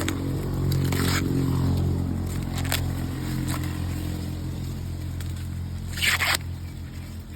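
Corn husks and leaves rustling and tearing in a few short rasping strokes as ears of corn are picked, the longest and loudest about six seconds in, over a steady low hum.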